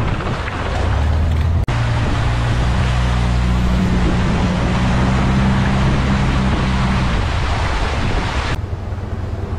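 Long-tail boat engine running steadily as the boat speeds along a canal, under a loud rush of water spray and wind. The sound cuts out for an instant about a second and a half in, and the hiss of spray drops away near the end.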